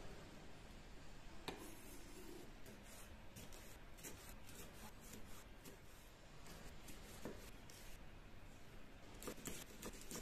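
A kitchen knife cutting through red bell pepper on a wooden chopping board: faint crisp cuts and light taps of the blade on the wood, in a run a few seconds in and a quicker run near the end.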